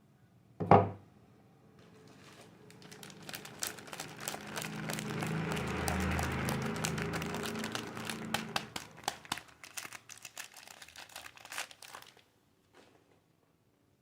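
A sharp thump about a second in, then a soap bar's wrapper crinkling with many small crackles as it is unwrapped by hand. The crinkling grows louder toward the middle and stops about two seconds before the end.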